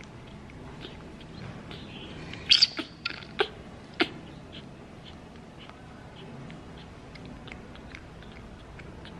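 A baby monkey sucking milk from a bottle's rubber nipple, with faint repeated sucking ticks and a cluster of six sharp, much louder smacks or squeaks between about two and a half and four seconds in.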